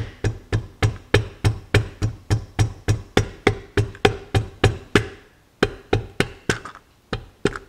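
Rapid even taps, about four a second with a short pause about five seconds in: the end of a tool handle driving a piston, its rings squeezed by an improvised hose-clamp ring compressor, down into the cylinder bore of a Robin EH-29C 295cc engine.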